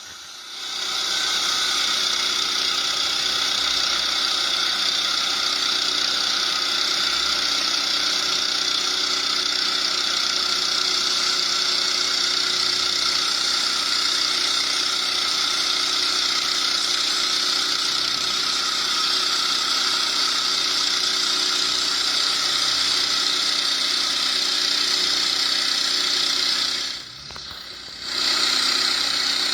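Sawmill running through a log, a steady mechanical whine with its engine and blade. It dips sharply for about a second near the end, then picks up again.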